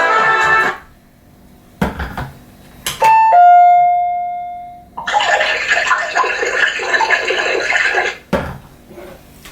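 A few sharp clicks, then a single bright bell-like ding, preceded by a short higher tone, that rings out and fades over about a second and a half. It is followed by a few seconds of dense, music-like sound that stops abruptly, and then one more click.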